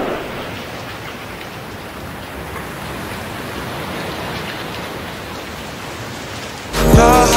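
Steady, even rain-like hiss. About 6.8 s in, a loud low hit lands and the song's music comes back in.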